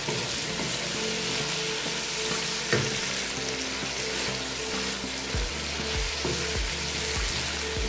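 Sliced bottle gourd sizzling in a wok as it is stirred with a wooden spatula, with occasional scrapes and clicks. The gourd is soft and its water has nearly cooked off.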